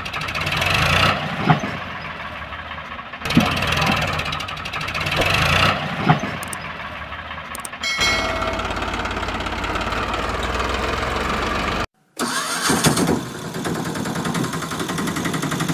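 Engine sound effects laid over toy play: an engine starting up twice, then running steadily from about eight seconds in. The sound cuts out completely for a moment near twelve seconds, then engine noise resumes.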